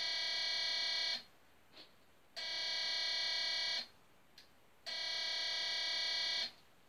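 Walk-through metal detector's alarm buzzer sounding three long, even electronic beeps, each about a second and a half with a short gap between, as it detects a small stainless steel knife held at its panel.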